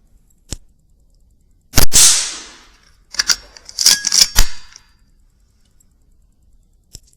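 A single shot from a Weihrauch HW100 .22 PCP air rifle, a sharp crack about two seconds in, followed by a quick run of sharp clicks and knocks over the next second and a half.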